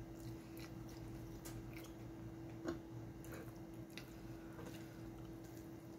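Faint chewing and wet mouth sounds of someone eating spaghetti, with scattered soft clicks and one light knock about halfway through, over a steady low hum.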